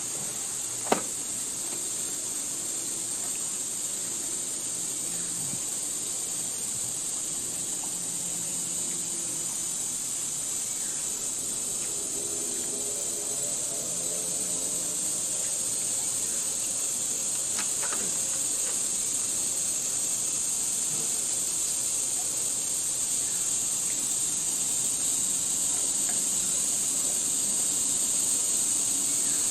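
Forest ambience: a steady, high-pitched insect chorus, slowly growing a little louder, with a single sharp click about a second in.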